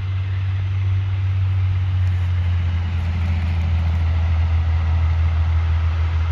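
Hi-rail dump truck's diesel engine running as the truck rolls slowly along the rails toward the listener: a steady low drone that grows a little louder in the first second.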